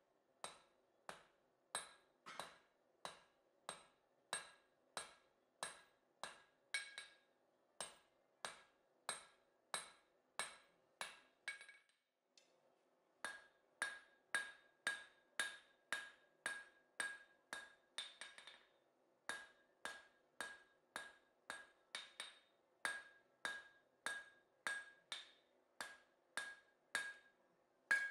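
Hand hammer striking a red-hot flat steel bar on an anvil in a steady rhythm of about one and a half blows a second, each blow ringing: the bar's end being drawn out. The blows stop for about a second around the middle, then resume at the same pace.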